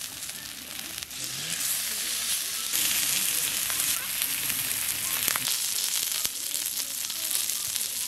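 Whole slab of pork belly sizzling in a hot cast-iron pan, its outside searing crisp, with scattered small pops of spitting fat.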